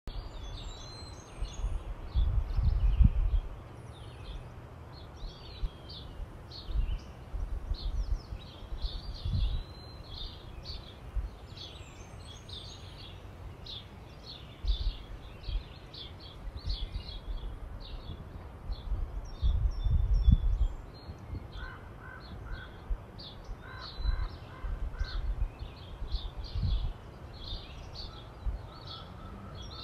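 Small birds chirping and singing almost continuously, many short calls overlapping. Low rumbles break in now and then, loudest near the start and about two-thirds of the way through.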